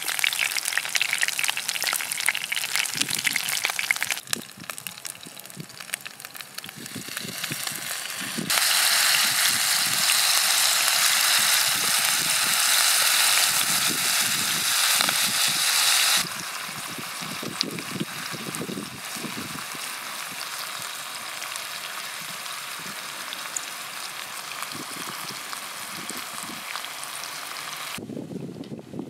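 Sea fish fillets frying in hot oil in a pan, sizzling steadily. About eight seconds in the sizzling grows much louder and harsher for about eight seconds, then settles back to a steady, quieter sizzle.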